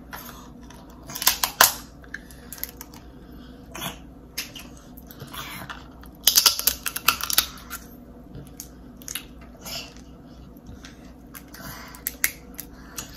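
Close-up eating sounds of crab legs being bitten and sucked: a series of sharp clicks and cracks of the shell, with a dense run of them about six to seven seconds in.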